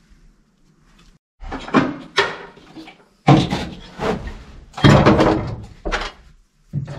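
Handling noise from work on a car's interior: after a second or so of quiet, four short bouts of knocking and scraping as hard trim parts are moved about.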